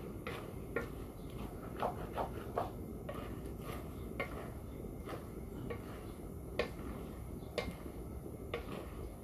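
Spatula scraping and clinking against a large metal wok as a thick minced-meat and vegetable mixture is stirred and tossed, with irregular sharp knocks about once a second over a steady low background rumble.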